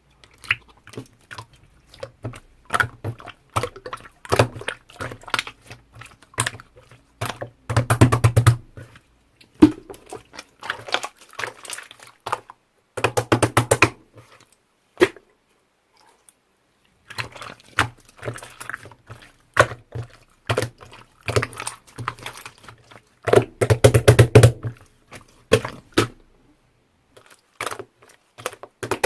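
Hands playing with slime, making bursts of clicking and popping, with dense runs of rapid pops about eight, thirteen and twenty-four seconds in and short pauses between.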